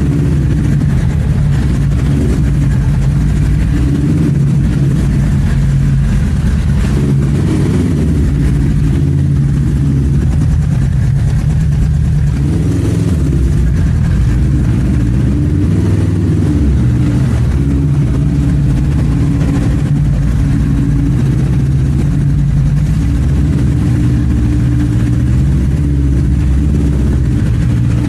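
Motorcycle engine running at low speed while being ridden, a steady low exhaust note whose pitch rises and falls a few times with the throttle.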